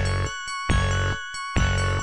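Background music: bell-like chiming tones over low chords that change about every half second.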